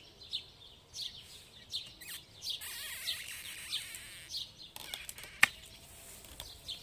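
Loppers closing with a single sharp snap through a woody forsythia stem, about five and a half seconds in, with rustling of branches before it. Songbirds chirp repeatedly throughout.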